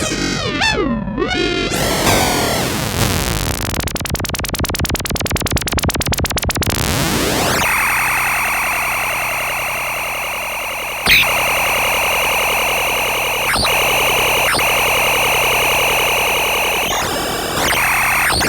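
Korg ARP 2600 FS analog synthesizer playing noisy experimental patches. It opens with swooping pitch sweeps, then a rapid clicking pulse for about three seconds, then a steady buzzy, noise-laden tone broken by two sharp hits and a wobble near the end.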